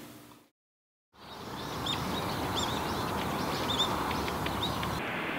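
After a moment of silence, steady outdoor background noise comes in with small birds chirping repeatedly in short, high calls.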